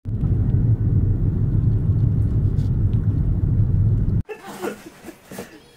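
Loud, steady low rumble of road and wind noise heard from inside a moving vehicle; it cuts off suddenly about four seconds in.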